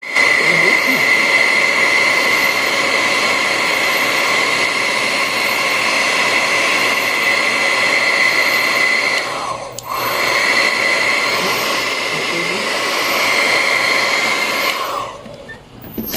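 Deli plastic welder gun's hot-air blower running with a steady whine. It cuts out briefly a little before halfway, starts again, then winds down near the end.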